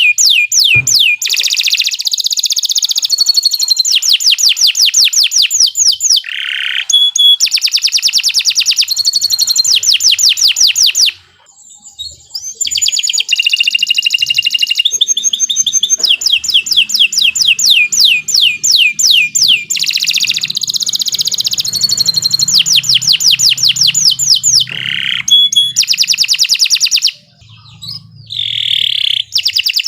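Domestic canary singing long, loud phrases of rapid trills, each a fast run of repeated high notes, with short pauses about eleven seconds in and again near twenty-seven seconds.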